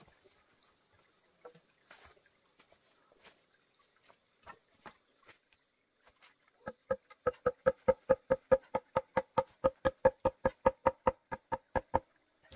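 Bamboo being struck in a fast, even run of hollow, ringing knocks, about five or six a second, starting about seven seconds in and stopping just before the end, after a few faint scattered taps.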